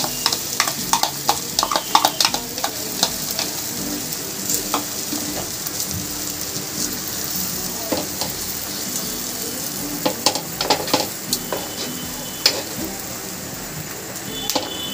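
Vegetable and egg batter sizzling in hot butter in a flat pan, with a steel spoon scraping and tapping against the pan as the batter is poured and spread. The clicks come in clusters in the first few seconds and again about ten seconds in.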